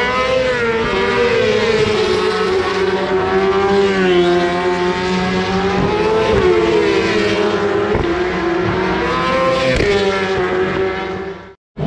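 Several superbike racing motorcycles at high revs coming down the straight, their engine notes overlapping, rising and falling in pitch as they accelerate, shift and pass. The sound cuts off abruptly near the end.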